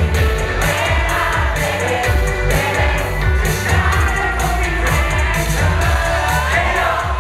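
Male pop group singing live into handheld microphones over a backing track with a steady, heavy beat.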